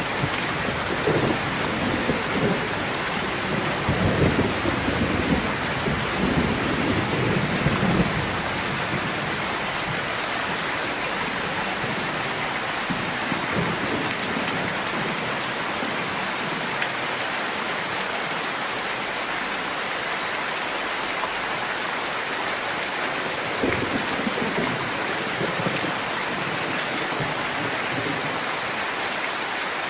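Steady heavy rain with low rolling thunder that rumbles for several seconds near the start and again briefly later on.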